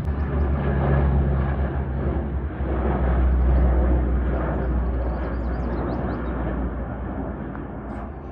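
Helicopter flying over, a steady low engine and rotor rumble that swells about three seconds in and then slowly fades.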